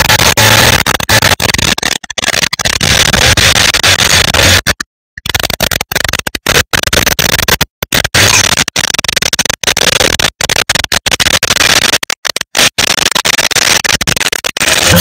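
Loud, rough rushing noise from a microphone under the engine of a 2016 Audi S4 on the move, with no clear engine tone, cut by frequent abrupt dropouts from the noise filter.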